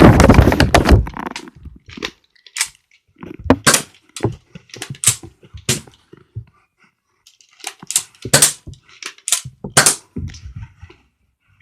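Nerf foam-dart blaster being primed and fired repeatedly: a dense rattle of clacks in the first second, then about ten sharp pops and clacks at uneven intervals, some in quick pairs.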